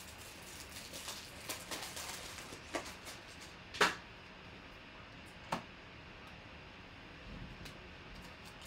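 Hands handling trading-card packs and cards at a table: a few scattered light clicks and rustles over low room hiss, the sharpest about four seconds in.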